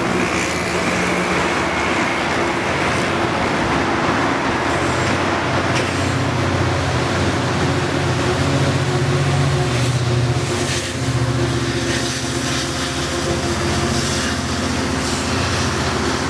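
Steady noise of heavy highway traffic mixed with a diesel-hauled double-deck passenger train moving off along the tracks, its locomotive's engine a low steady hum.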